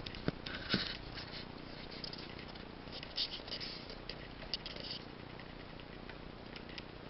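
Four-month-old Belgian Shepherd-mix puppy chewing a carrot: scattered crisp crunches and mouth clicks, bunched just under a second in and again from about three to five seconds in.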